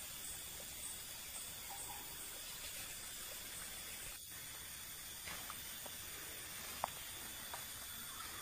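Steady outdoor background hiss with faint high insect-like chirps repeating in the first couple of seconds, then a few short sharp clicks in the last two seconds.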